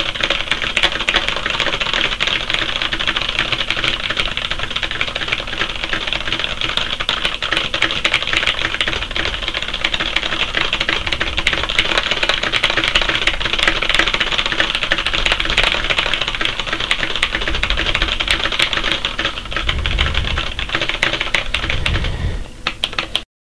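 Fast continuous touch typing on a computer keyboard at about 120 words per minute, a dense unbroken stream of key clicks that stops abruptly near the end.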